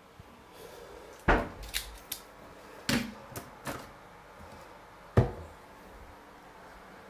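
About seven sharp knocks and clatters of kitchenware, a colander being taken out and handled. The loudest come about a second in and again near five seconds in.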